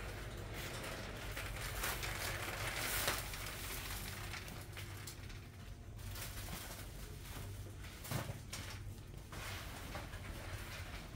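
Shop-floor ambience: a steady low hum under scattered footsteps, light taps and rustling as someone walks between the grocery shelves.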